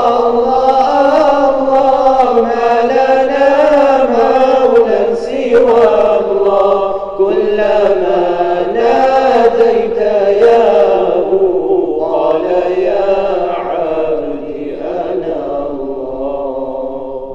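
A group of voices singing an unaccompanied nasheed melody in long, drawn-out notes without clear words. The singing fades down over the last few seconds.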